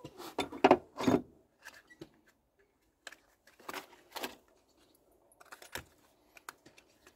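Light clicks, taps and rustles of a spark plug and its cardboard box being handled, as the plug is packed into the box. They come in short scattered clusters, the loudest in the first second or so.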